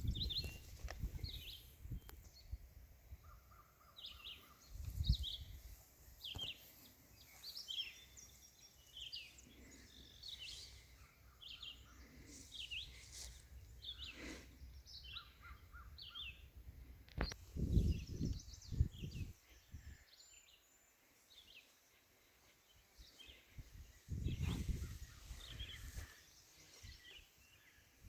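Outdoor ambience of songbirds chirping and calling in short repeated phrases throughout, with a few low gusts of wind buffeting the microphone.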